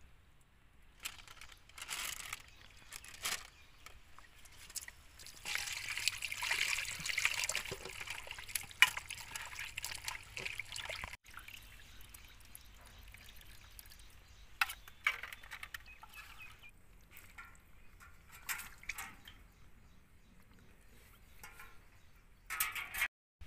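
Water pouring and splashing over a whole raw chicken as it is washed by hand, a steady trickle for several seconds. After a cut, hands slosh chicken pieces in a steel bowl of water, making short irregular splashes.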